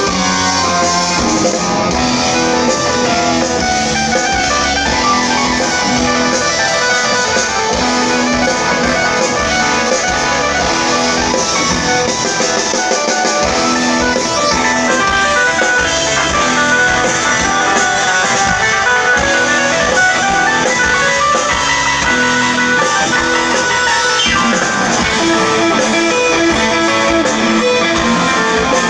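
Live rock band playing an instrumental passage, led by electric guitar over drums and bass.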